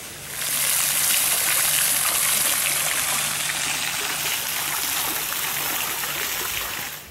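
Steady rushing of water that starts abruptly and runs for about seven seconds, with a faint low hum underneath.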